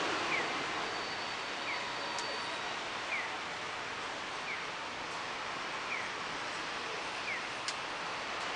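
Steady outdoor background noise of a town at night, with a faint short falling chirp repeating about every second and a half and a couple of faint clicks.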